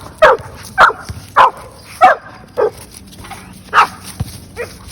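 A dog barking repeatedly, about seven short barks roughly half a second apart, with a brief pause a little past the middle.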